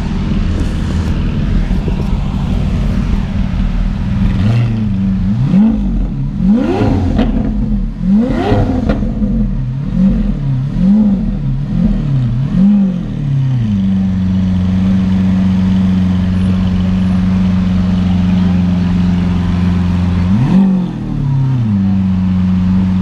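Lamborghini Aventador Roadster's V12 idling, then revved in a string of about seven quick blips, each pitch rising and falling, before it settles back to a steady idle; one more short rev comes near the end.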